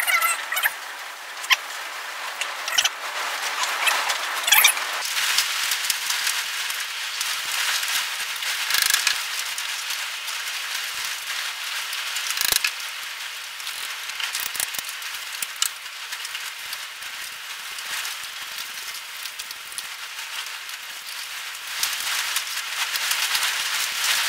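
Scattered metallic clinks, taps and knocks of hand tools and parts as a dumper gearbox is unbolted and pulled apart, over a steady hiss.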